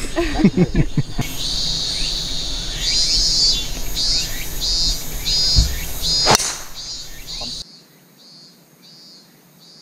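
Insects chirping in short pulses about twice a second over light wind rumble, with a single sharp crack about six seconds in as the driver strikes the golf ball.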